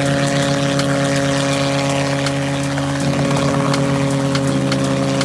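Supercharged RotorWay A600 helicopter hovering low in ground effect: a steady drone of engine and rotor whose note steps slightly a couple of times as the pilot manoeuvres.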